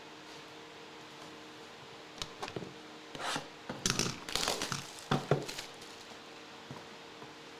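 Trading card packaging being opened by hand: wrappers crinkling and tearing with sharp crackles, in a cluster from about two seconds in to about five and a half seconds in, over a faint steady hum.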